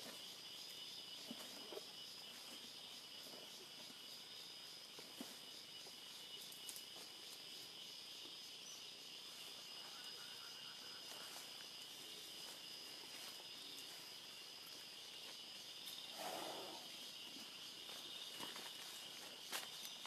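Steady, high-pitched chorus of forest insects, with occasional faint clicks and rustles and a slightly louder rustle about sixteen seconds in.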